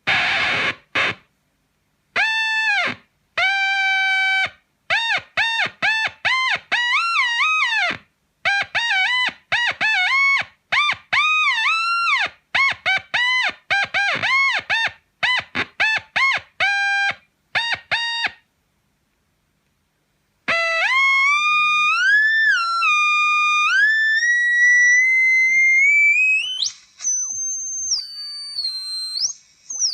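Electric guitar (Gibson SG neck pickup) through a Zvex Fuzz Factory fuzz pedal and a Roland Cube 30 amp, playing short notes that cut off abruptly, some bent in pitch. About two-thirds in comes a long sustained fuzz tone that slides and bends like a theremin, climbing to a high held pitch near the end.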